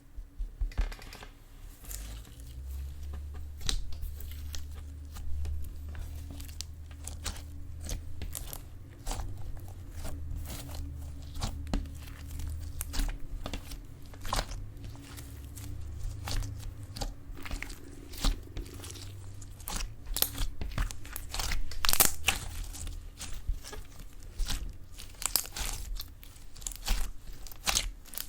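Slime being squished and worked by hand: a dense run of small sticky crackles and pops, over a low steady hum.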